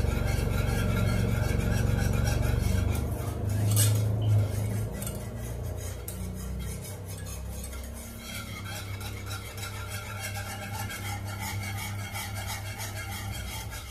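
Wire whisk stirring and scraping round a metal pan of white sauce of milk, cream and flour roux as it cooks to thicken, in rapid continuous strokes. Louder for the first few seconds, with a sharper knock about four seconds in, then softer stirring. A low steady hum underneath.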